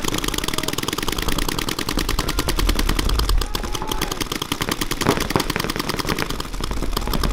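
Paintball markers firing rapid strings of shots, a fast continuous rattle of many shots a second.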